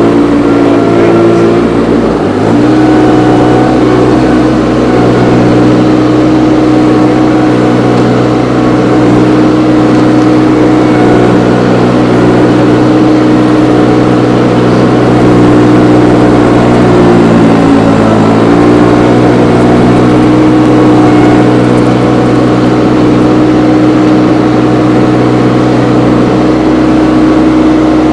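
Engine running steadily, its pitch sagging briefly about two seconds in and again around seventeen seconds in before recovering, as under a passing load.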